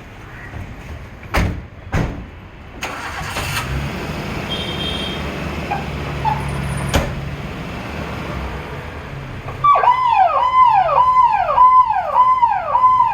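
A vehicle's engine runs with a low rumble, with a couple of sharp knocks in the first two seconds. About ten seconds in, an electronic siren starts wailing, each cycle rising quickly, holding, then falling, a little over twice a second.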